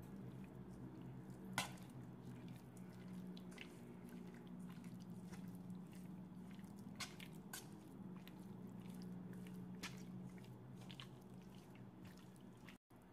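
Raw pork chunks being stirred into soy sauce and spices in a stainless steel bowl with a metal utensil: faint wet squishing, with scattered sharp clicks of the utensil against the bowl, the loudest a little after the start. A steady low hum runs underneath.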